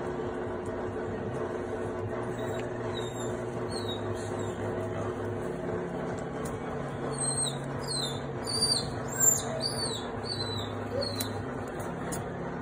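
Newborn French bulldog puppy squeaking: a run of short, high-pitched cries, faint at first and coming thick and fast in the second half, over a steady low hum.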